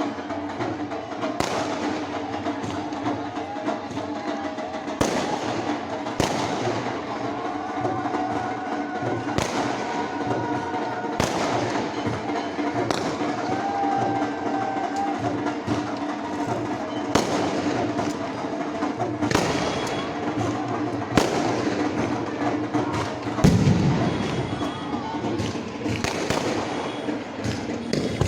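Fireworks going off in irregular bangs every second or two, the loudest with a deep thump near the end, over continuous music and voices.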